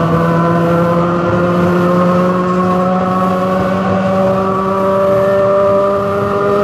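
Sydney 'wooden' Bradfield electric train's traction motors whining as it accelerates: a stack of tones rising slowly and steadily in pitch over a running rumble.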